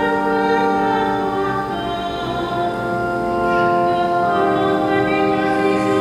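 Church choir singing with organ accompaniment: long, held chords that change about two seconds in and again a little after four seconds.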